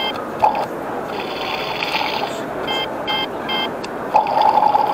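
Toy kitchen's sound burner playing its recorded cooking sound effect when its button is pressed: a steady watery bubbling noise. A louder steady tone joins about four seconds in.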